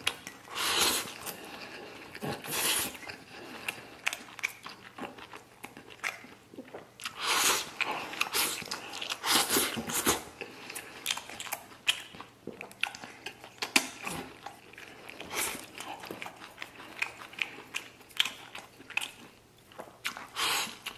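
A person eating rice mixed with stir-fried pork liver from a steel bowl, shoveling mouthfuls in with chopsticks and chewing, in short noisy bursts every second or two.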